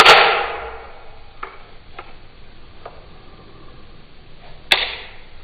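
Trigger mechanism of a slideless Glock 19-pattern pistol frame being worked: two sharp metallic clicks about four and a half seconds apart, each with a short springy ringing tail, and a few faint ticks between them.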